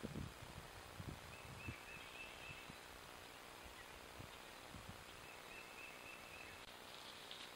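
Quiet rural outdoor ambience: a steady hiss with a few soft low thumps in the first two seconds, and a faint high warbling call heard twice, about a second and a half in and again near the end.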